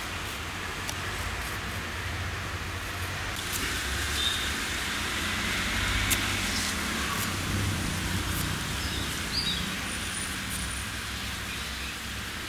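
Steady outdoor background noise with a low hum, broken by a few faint clicks of a knife cutting elephant yam into cubes. A bird chirps briefly, once near the middle and once later on.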